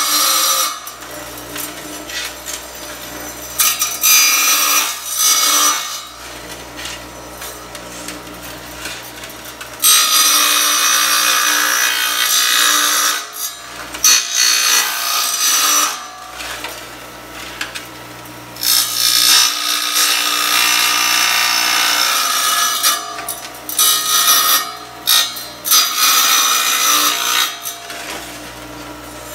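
Chicago Electric bench tile saw running steadily, its blade grinding loudly into tile in several separate cuts of two to four seconds each, as the tile is fed in for a row of narrow relief cuts.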